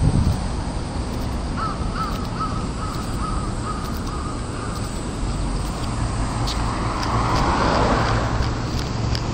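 A crow caws in a quick run of short, repeated caws, about three a second, for a couple of seconds. Steady traffic and wind noise run underneath, and a vehicle swells past near the end.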